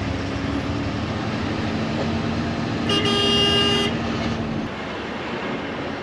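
A vehicle horn sounds once for about a second, heard from inside a moving bus over the steady hum of its engine and the road noise. The engine hum drops away about two-thirds of the way in.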